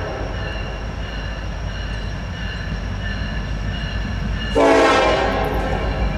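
Diesel freight train rumbling steadily as it draws near, slowly growing louder. About four and a half seconds in, the lead Norfolk Southern SD70IAC locomotive sounds a long air-horn blast.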